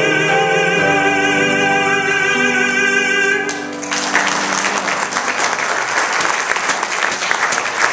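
A male cantor holds the final sung note of a song with vibrato over piano accompaniment; the voice and piano stop about three and a half seconds in. An audience then applauds.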